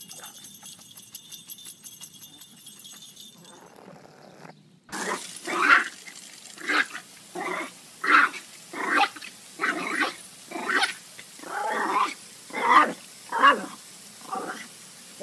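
A dog barking over and over, about one bark every 0.7 seconds, starting about five seconds in, while lunging at a spraying garden sprinkler. Before that, only faint ticking and steady high tones.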